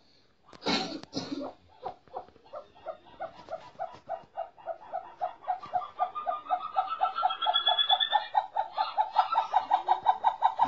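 Caged snowcock calling: a long run of quick repeated notes that speeds up and grows louder, with a rising whistle over it partway through. A short rustling burst comes about a second in.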